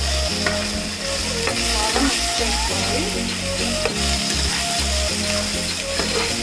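Chicken pieces with masala sizzling as they fry in oil in a nonstick pan, stirred with a metal spatula that scrapes and knocks against the pan several times.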